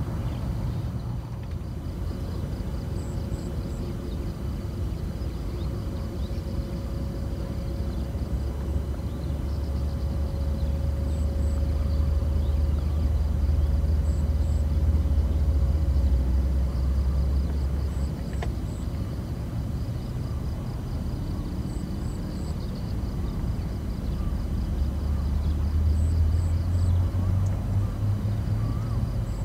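Outdoor background sound: a steady low rumble that swells twice, with a faint steady hum for a while and faint high chirps repeating in twos and threes.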